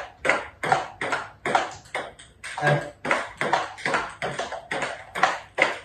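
Table tennis rally on a small table: the ball clicking off the tabletop and the rubber paddles in turn, an even rhythm of about three knocks a second.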